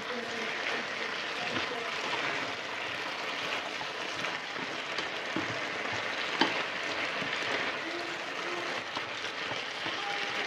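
Shredded cabbage and carrot sizzling in a hot frying pan as they are stir-fried with a wooden spatula and chopsticks, a steady hiss with a few light knocks of the utensils against the pan.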